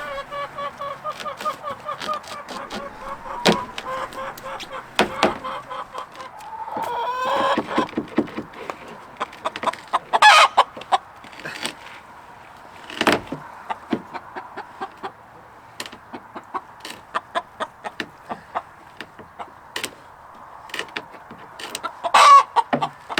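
Chickens clucking and calling, starting with a long pulsing, drawn-out hen call over the first several seconds and a short rising call after it. Sharp knocks and clattering sound throughout, the loudest about ten, thirteen and twenty-two seconds in.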